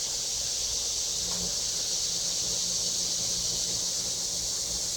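Steady high-pitched drone of an insect chorus, with a faint low hum entering about a second in.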